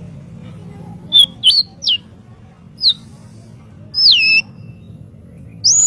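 White-rumped shama (murai batu) singing: a string of short, clear whistled notes, several sliding down in pitch, with a longer falling whistle about four seconds in and a high note near the end.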